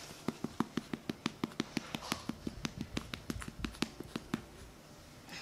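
A hand patting a 4-week-old French bulldog puppy's back in quick, even pats, about six a second, which stop about a second before the end. The pats burp the puppy after its feed of puppy mush.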